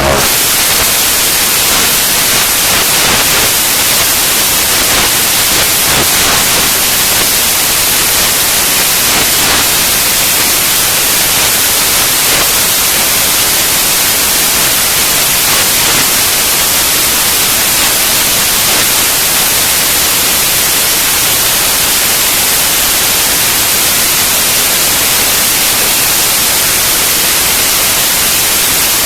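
Loud, steady static hiss, an even white-noise wash that is strongest in the high frequencies and does not change.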